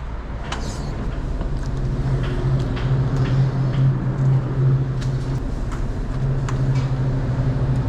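Truck running on the road: a steady low engine hum with road noise, and scattered faint clicks over it.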